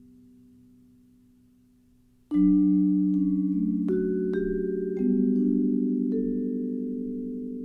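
Background music of vibraphone struck with soft mallets. A ringing chord fades almost to nothing, then a new chord is struck about two seconds in, followed by a few more notes a second or so apart, each left to ring on.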